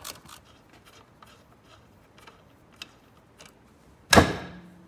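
Light metallic clicks of hands and tools on a spring-loaded snowmobile drive clutch, then about four seconds in a sudden loud metallic bang that rings briefly, as a part of the clutch lets go under spring pressure.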